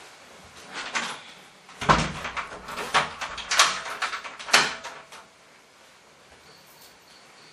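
A few knocks and clunks of wood inside a room: a wooden door being shut and a wooden chair taking a person's weight as he sits. The loudest is a heavy thud about two seconds in.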